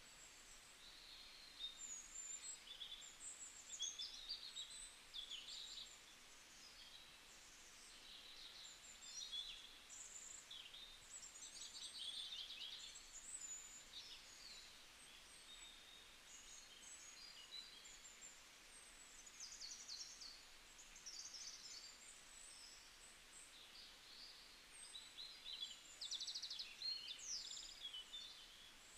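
Faint birdsong: small birds giving quick, high chirping calls in clusters throughout, over a low background hiss.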